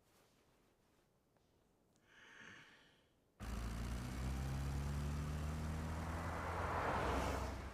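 A soft sigh, then a sudden loud low rumble with a rising hiss that swells and falls away near the end.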